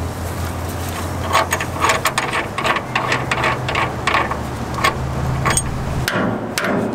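Hand tools working on the steering parts of a 1957 Chevrolet: a run of irregular metallic clicks and clinks, with a steady low hum underneath that stops near the end.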